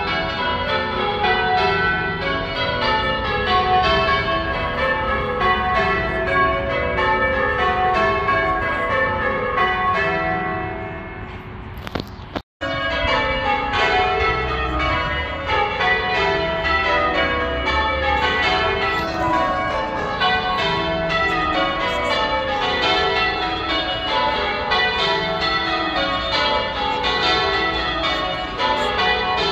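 Church tower bells being rung in changes: a steady stream of strikes running down the bells in repeated descending sequences. About twelve seconds in, the ringing fades and cuts out for an instant, then carries on as before.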